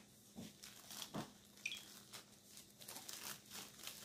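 Faint rustling and crinkling of something being handled, with scattered soft clicks and a couple of light taps.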